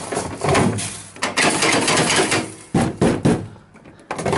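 Rice pouring from a push-lever rice dispenser into a metal bowl: a rattling rush of grains in several spells, with knocks from the dispenser's mechanism.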